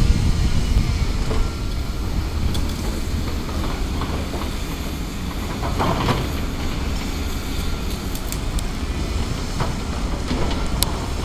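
Volvo EC360B tracked excavator's diesel engine running steadily as the machine slews and swings its bucket, with scattered knocks and clatters, the loudest about six seconds in.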